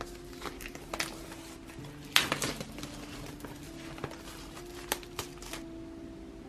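A K-pop album being handled and unpacked: scattered light taps and clicks of card and plastic packaging, with a louder rustle about two seconds in.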